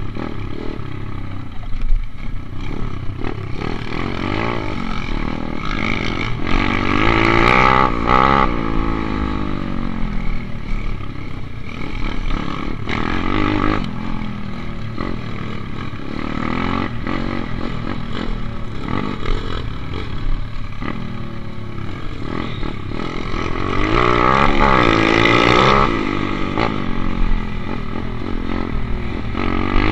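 Dirt bike engine revving, its pitch rising and falling again and again as the throttle opens and closes. It is loudest twice, about seven seconds in and again around twenty-four to twenty-six seconds in.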